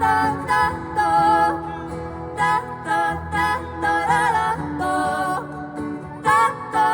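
Live acoustic song: a wordless vocal melody of short notes and a wavering held note about four seconds in, over acoustic guitar.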